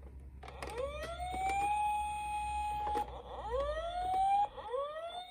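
Electronic siren of a toy emergency vehicle, winding up in a rising wail three times. The first wail is held for about two and a half seconds and the next one is cut off after about a second. Light clicks and knocks come through it.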